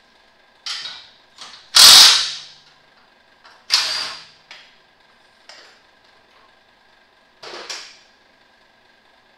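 A mechanic's tool working on fasteners in a truck's engine bay: a series of short, sharp mechanical bursts and clanks, the loudest about two seconds in and another near four seconds, over a faint steady hum.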